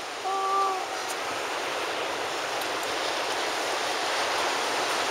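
Steady rushing of surf and shallow water along the shoreline. A short, steady pitched tone sounds for about half a second just after the start.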